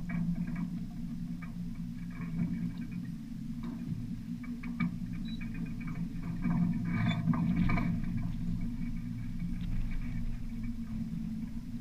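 Steady rush of water and wind around a 1972 Dufour Arpege sailboat moving under sail with no engine running, with scattered light clicks and rattles from the rigging and mast.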